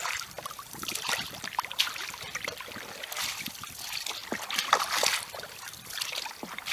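Water splashing and sloshing around and inside a leaking wooden dugout canoe (a Kuna ulu) under way, swelling in irregular bursts every second or two.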